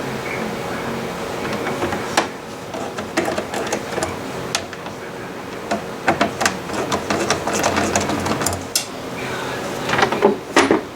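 Metal clicks and clinks of tools working the bolts out of a Polaris General's clutch cover, in irregular clusters over a steady hum.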